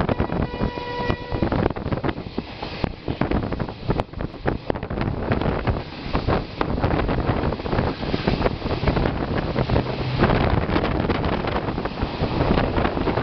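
Diesel locomotive horn sounding and cutting off about a second in, then the loud rushing noise of an express train passing at speed, with rapid wheel clicks over the rails and wind buffeting the microphone.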